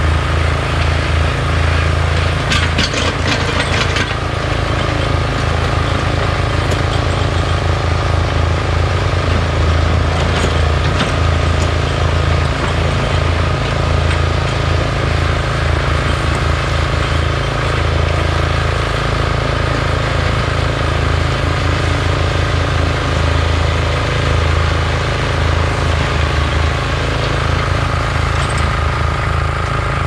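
Komatsu PC40 mini excavator's diesel engine running steadily under work, a pulsing low drone with a steady high whine above it. A brief spell of clicking and rattling comes about three seconds in.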